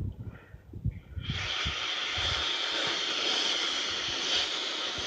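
Compressed air hissing steadily out of the opened drain valve on the tank of a Central Pneumatic 3-gallon oilless air compressor, which is being drained so that moisture won't rust the tank. The hiss starts suddenly about a second in, after a few knocks of handling.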